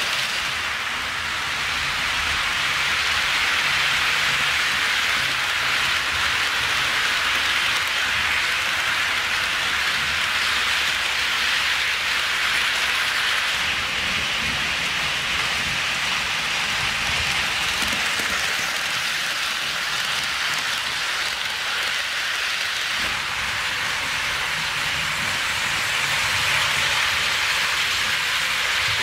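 Several HO scale model trains rolling on sectional track laid on a wooden floor: a steady rushing rattle of small wheels on the rails.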